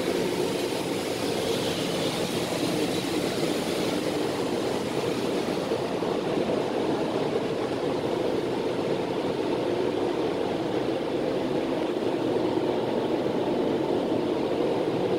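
Steady roar of an automatic car wash heard from inside the car: water spraying on the body and the wash machinery running, with the high hiss easing off about six seconds in.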